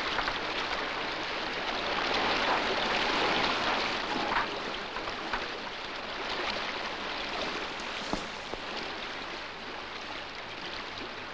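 Steady rushing and splashing of sea water, swelling and easing slowly, with a few small knocks.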